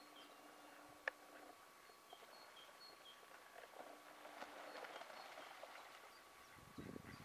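Faint outdoor ambience with a small bird repeating short, high notes at an even pace, alternating between two pitches. There is a single sharp click about a second in and a few low thumps near the end.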